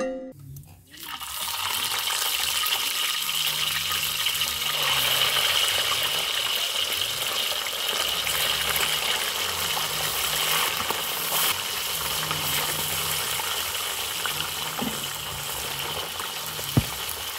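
Small fish deep-frying in hot coconut oil in a wok: a dense, steady sizzle that starts suddenly about a second in as the fish go into the oil.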